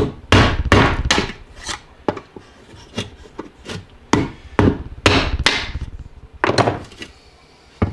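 Hammer striking the handle of a screwdriver, about a dozen and a half sharp blows at roughly two a second with short pauses, driving the old shaft seal out of a hot tub pump's wet-end housing.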